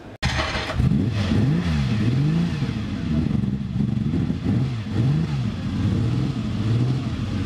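Engine of a classic Ferrari coupé, heard at its twin tailpipes, being blipped on the throttle while standing still. Its pitch rises and falls several times in quick revs, with short drops back toward idle in between.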